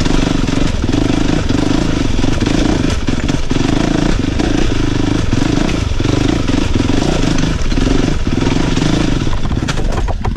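Honda CRF450RX dirt bike's single-cylinder four-stroke engine running under load while climbing a rocky, rutted trail, the engine note dipping briefly many times as the throttle comes on and off over the rocks.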